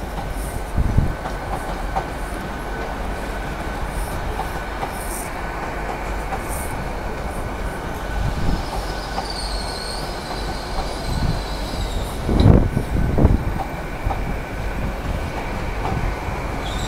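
A train moving at low speed: a steady rumble with occasional knocks of wheels over rail joints, the heaviest about three quarters of the way through, and a thin high-pitched squeal from the train setting in about halfway through.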